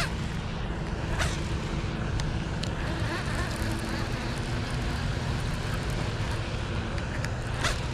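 Steady outdoor background noise: a low rumble under an even hiss, with two brief swishes, one about a second in and one near the end.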